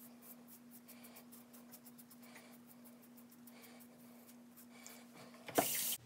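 Cartridge razor scraping stubble on the neck in quick short strokes, faint, over a steady low hum. Near the end a short loud burst of noise.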